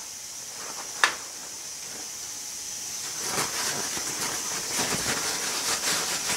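Paper towel rustling and rubbing as oil is wiped off a steel part, starting about three seconds in, over a steady high hiss. A single sharp click comes about a second in.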